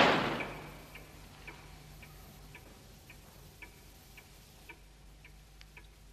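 The echo of a gunshot dies away within the first second. After it, a clock ticks steadily, about two ticks a second.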